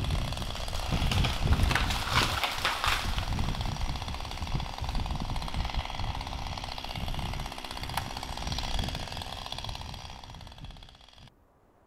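Chainsaw running while an ash tree is felled. About two seconds in comes a burst of cracking and crashing as the trunk goes over. The saw runs on, then the sound cuts off abruptly near the end.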